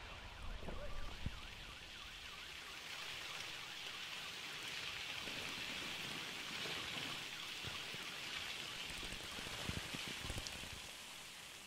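Fine paint falling back like rain after the paint explosions: a steady soft hiss with scattered drops pattering onto the ground and trees.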